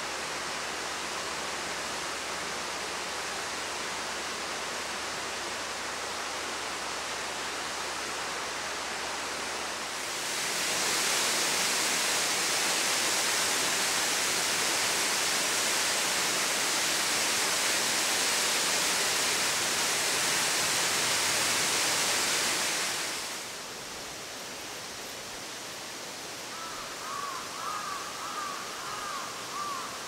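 Manai Falls, a waterfall dropping into a gorge pool, rushing steadily. The rush grows louder and brighter about ten seconds in and falls back about thirteen seconds later.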